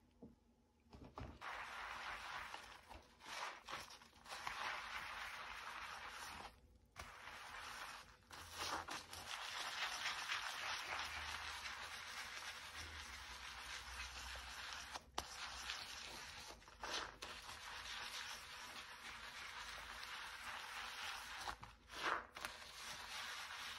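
Soapy sponge scrubbing a stainless steel kitchen sink: a steady scratchy swishing of sponge and suds against the surface, with a couple of short breaks about a third of the way in.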